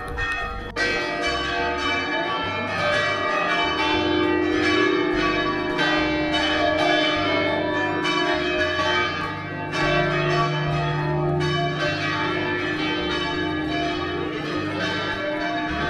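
Cathedral church bells ringing, struck again and again with the tones overlapping and ringing on.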